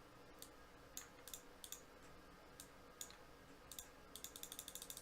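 Faint clicking: a few scattered clicks, then a quick run of rapid clicks starting about four seconds in.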